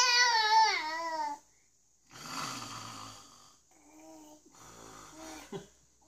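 A baby lets out a high, wavering cry that falls in pitch. Then comes a man's loud snore, followed by the baby's softer whimpers and another snore.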